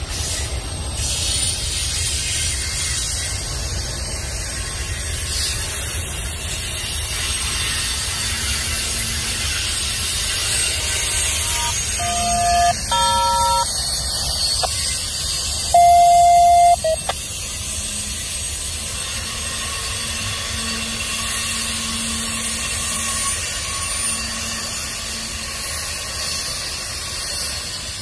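Union Pacific double-stack intermodal train's well cars rolling past: a steady rumble of steel wheels on rail with a high hiss and squeal. About halfway through come a few short beeping tones, the loudest lasting about a second.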